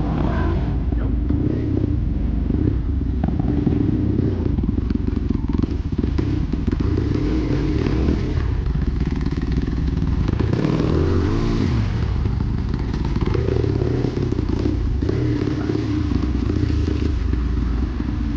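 Dirt bike engine running steadily while riding, with rattling and knocks from the rough ground; about ten seconds in the engine pitch swings down and back up for a second or two.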